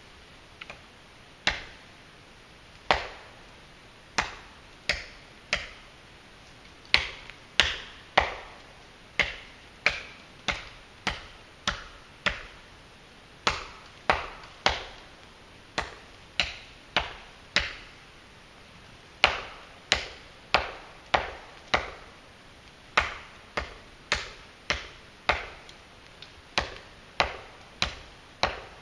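Custom chopper knife, WC Knives' The Prepper, hacking into a fallen tree limb: dozens of sharp blade strikes into wood, unevenly paced at about one to two a second.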